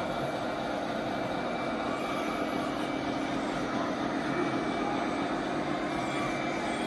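Steady whirring of radio-controlled construction models' electric motors and gearboxes at work, holding an even level with no sharp knocks.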